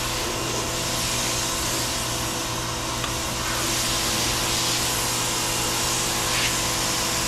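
Suyncll electric pressure washer running steadily, its motor and pump humming under a constant hiss of water spray. The spray is weak: the owner says his regular hose has more pressure.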